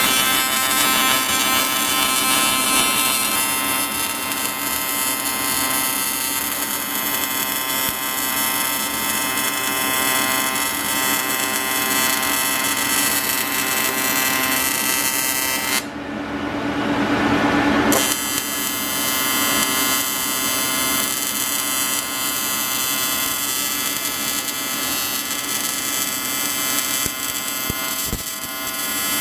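AC TIG welding arc from an Everlast 325EXT set to a 125 Hz frequency, buzzing steadily as it welds oil-soaked cast aluminum. The arc breaks off about sixteen seconds in and strikes again about two seconds later.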